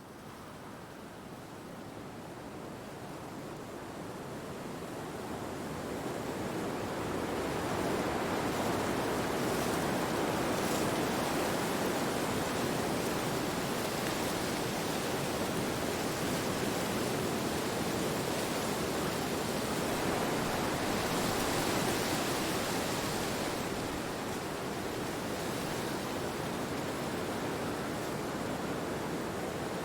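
Recorded wind, a steady rushing noise that fades in and swells over the first several seconds, then holds with slow gentle surges.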